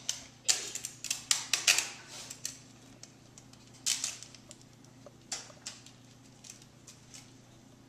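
Clear sticky tape crackling and clicking as it is handled and pressed onto a plastic drinking straw: a dense flurry of sharp crackles in the first two seconds or so, a few more around four and five and a half seconds in, then thinning out.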